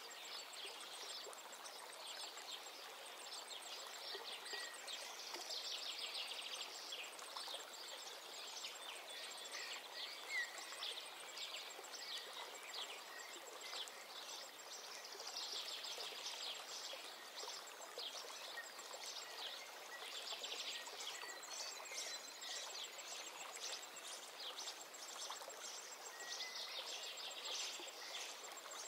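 Soft nature ambience of steadily running water with bird chirps coming in clusters every few seconds.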